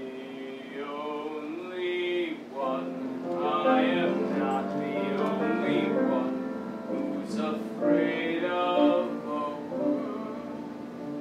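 A man singing a musical theatre song over instrumental accompaniment, with long held notes that waver in pitch.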